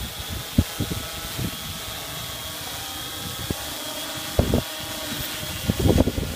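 Hexacopter's six electric motors and propellers whirring with a steady high whine as it lifts off and climbs. Low rumbling bumps of propeller wash on the microphone break in now and then and are loudest about four and a half seconds in and again near the end.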